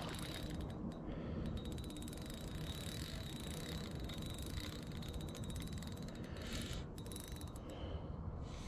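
Spinning reel being cranked to retrieve a lure, its gears giving a fast, even run of fine ticks.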